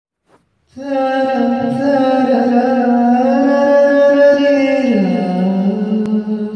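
A man singing unaccompanied, entering under a second in and holding one long, wavering note that slides down to a lower pitch about five seconds in.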